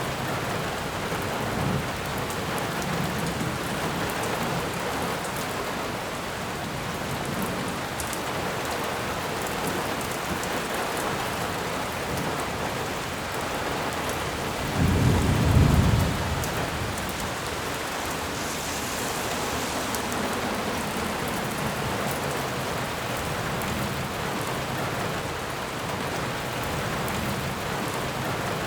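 Steady rain falling in a forest, an even hiss of drops. A brief low rumble comes about halfway through.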